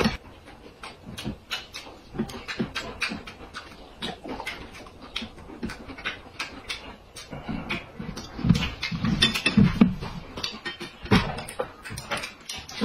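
A man chewing and smacking his lips while eating boiled dumplings: a steady run of short, wet mouth clicks, with a few low hums with his mouth full about two-thirds of the way through.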